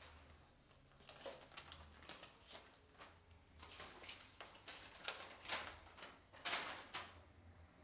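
A sheet of paper crinkling and rustling in irregular short bursts as it is handled and unfolded, loudest around five and a half and six and a half seconds in, over a faint low hum.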